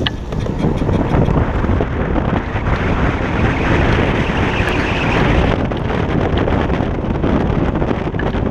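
Wind buffeting the microphone of a side-mounted GoPro on a moving Kaabo Wolf King GT electric scooter, mixed with the rumble of its tyres on asphalt. The noise swells sharply right at the start and then stays loud and steady.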